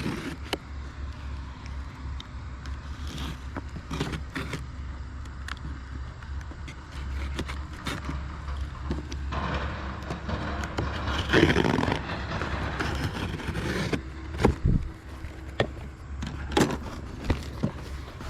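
A shipping package being opened and unpacked by hand: scraping and rustling with scattered knocks and clicks, busiest about ten to twelve seconds in, over a steady low hum.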